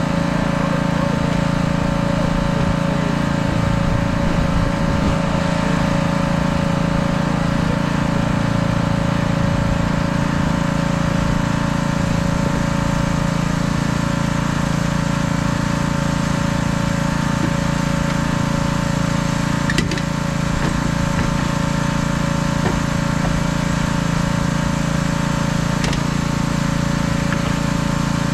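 A small engine running steadily at constant speed, a continuous even drone.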